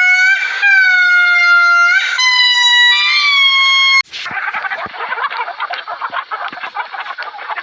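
Long, steady pitched tones in held notes of about a second and a half each, separated by short noisy breaks. These cut off abruptly about four seconds in, and a dense flock of fowl, such as geese, takes over, many birds calling at once.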